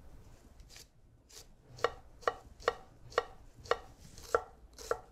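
Chef's knife chopping an onion on a wooden cutting board: sharp knocks of the blade striking the board, evenly paced at about two a second, faint at first and louder from about two seconds in.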